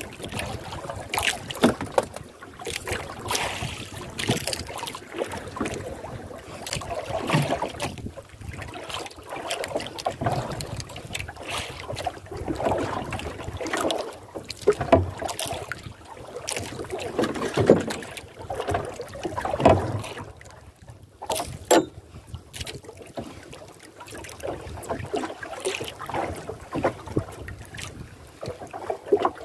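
Sea water lapping and slapping against the hull of a small outrigger canoe in uneven washes, with wind on the microphone and a few sharp knocks.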